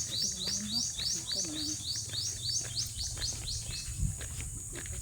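An animal giving a fast, even series of short rising high chirps, about four a second, that stops about four seconds in, over a steady high hiss. A single low thump comes at about four seconds.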